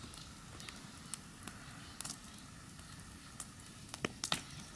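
Wood campfire crackling: scattered sharp pops and snaps, with a couple of louder snaps about four seconds in.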